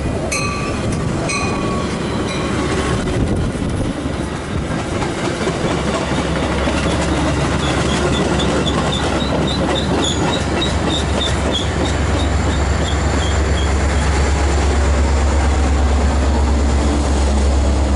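Metra commuter train of bilevel gallery cars, cab car leading, passing close. Its wheels click over the rail joints, with a run of short high squeaks in the middle. The low drone of the diesel locomotive pushing at the rear builds and is loudest near the end as it passes.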